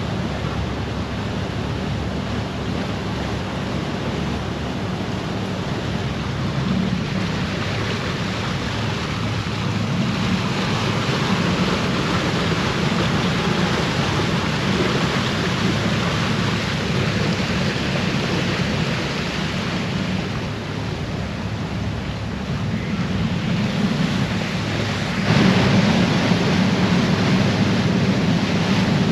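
Icebreaker under way through drift ice: a steady rush of water and broken ice churned at the bow over the low hum of the ship's engine, with wind on the microphone. It grows louder near the end.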